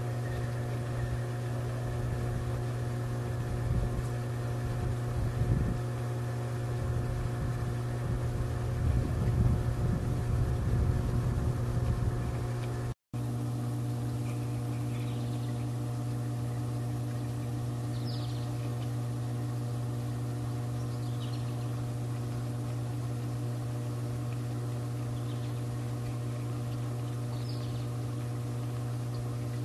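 Dolphin robotic pool cleaner's motor running with a steady, even hum. Irregular low rumbling comes and goes through the first half. The sound breaks off for an instant near the middle, then goes on steadier, with a few faint chirps.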